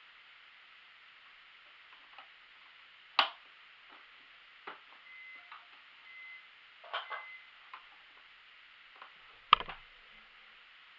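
Quiet handling at a sewing machine: bias tape and dress fabric being arranged under the presser foot, with scattered light clicks and taps, a sharp click about three seconds in and a louder knock near the end.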